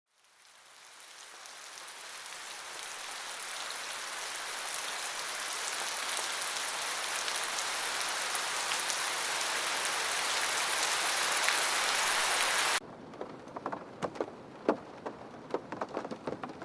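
Heavy rain fading in and growing steadily louder, then cutting off abruptly about thirteen seconds in to lighter rain with scattered individual drops.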